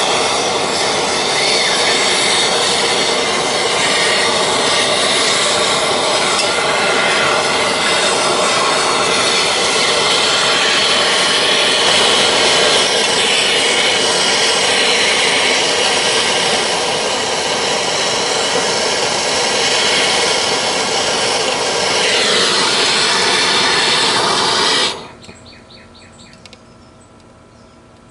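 Power tool motor running steadily, then shut off suddenly about 25 seconds in.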